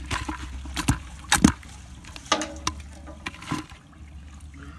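Water splashing and sloshing in a series of sharp splashes, the loudest about a second and a half in.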